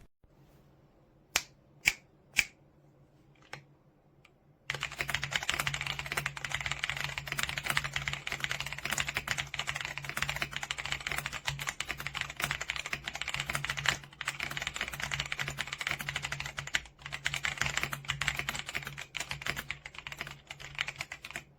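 Mechanical keyboard with soft linear switches being typed on: a few single key clicks, then about five seconds in, fast continuous typing with a low steady hum underneath.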